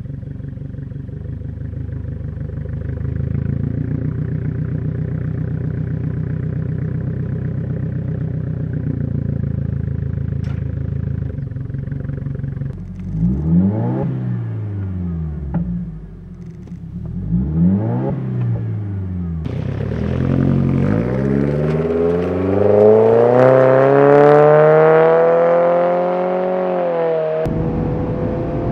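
2020 Subaru Ascent's turbocharged 2.4-litre flat-four through a muffler-delete cat-back exhaust with mid-pipe: idling steadily, then two quick revs in park about thirteen and seventeen seconds in, each rising and falling. It then pulls through a long acceleration, its pitch climbing for several seconds before dropping off near the end.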